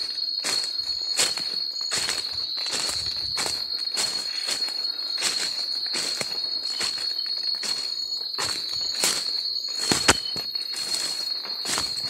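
Steady high-pitched drone of forest insects, with footsteps crunching through dry leaf litter about twice a second and one sharp snap about ten seconds in.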